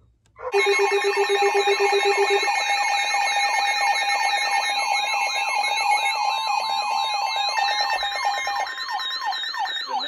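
Several weather alert radios sounding their alarms at once for a received Marine Warning. They begin together about half a second in as a loud tangle of overlapping beeping, steady tones, a fast warble and repeated falling sweeps. The low beeping stops after about two seconds.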